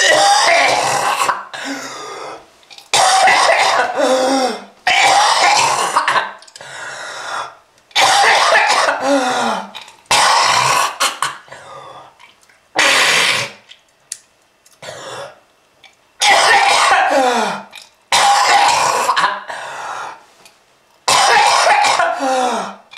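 A person coughing again and again: about nine loud coughing bouts, each lasting a second or so and coming roughly every two seconds, with fainter coughs between them.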